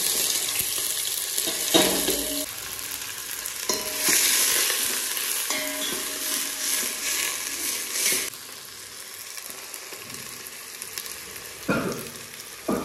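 Freshly added chopped onion, tomato, chilli, ginger and garlic sizzling loudly in hot oil in a pan, with the scrapes of a spoon stirring them. About eight seconds in, the sizzle drops to a quieter hiss.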